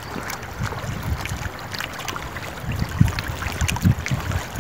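Wind buffeting the microphone over small waves lapping at the shore, with a few stronger low gusts about three seconds in.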